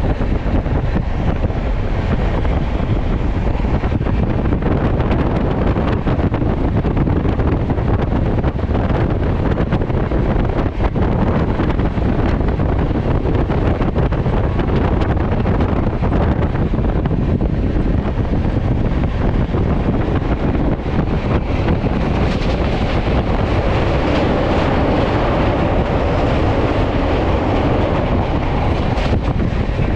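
Shane Punjab Express train running at speed: a steady rail rumble with scattered sharp clicks, and wind buffeting the microphone. The noise turns brighter about two-thirds of the way through.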